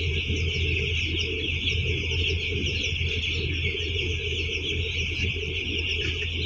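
A flock of broiler chicks peeping continuously, many short high calls overlapping, over a steady low hum.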